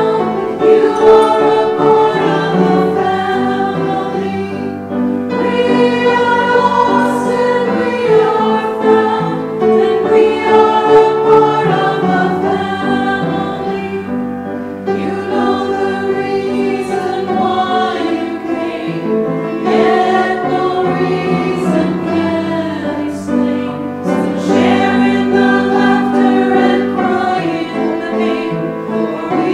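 A hymn sung by a choir, in phrases with short breaks between them.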